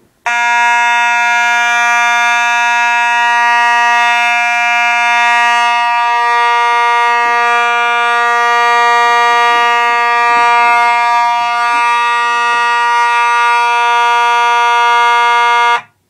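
Simplex 2901-9838 fire alarm horn, its back tab bent to raise the pitch, sounding a steady continuous buzzing tone on a continuous (non-temporal) signal, then cutting off suddenly near the end.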